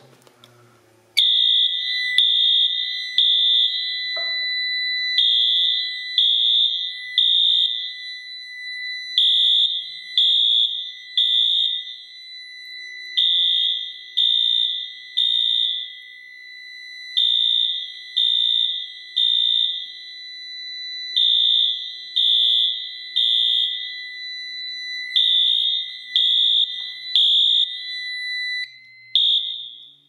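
Fire alarm system in alarm, set off by a smoke detector: a Wheelock MT electronic horn sounding the temporal code-3 evacuation pattern, three loud high beeps, a pause, and again, repeating. A steady high tone runs beneath it and stops shortly before the end.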